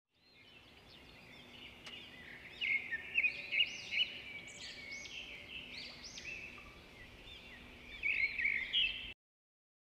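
Many small birds chirping, overlapping high quick calls that rise and fall. The sound fades in at the start, swells in two louder clusters, and cuts off abruptly shortly before the end.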